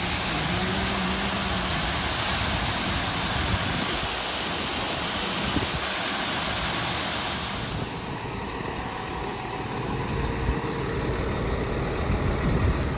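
Combine harvester running steadily through wheat, a continuous machine noise with lots of hiss. Its higher part eases off about eight seconds in.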